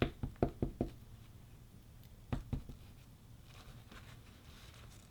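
Light clicks and taps of small tools and parts being handled during headphone microphone cleaning: a quick run of about five clicks at the start, two more a little after two seconds in, then a faint brushing hiss.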